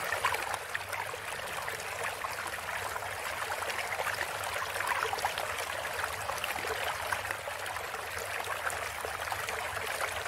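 Running, bubbling water, likely a sound effect laid under an animation: a steady trickle with many small crackles and pops throughout.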